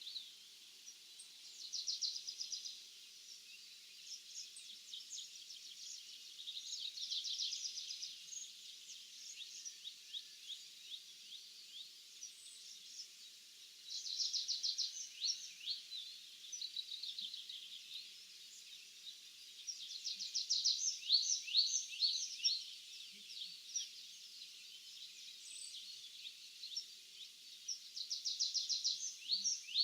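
Small songbirds singing in an open field: phrases of rapid trills and quick downward-sliding notes come every few seconds over a faint steady hiss.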